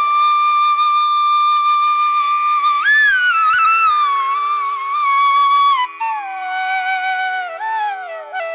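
Background music: a flute holds long notes over a steady drone. About three seconds in, the melody swoops up and slides back down. In the second half the phrase drops lower and ends with a falling glide.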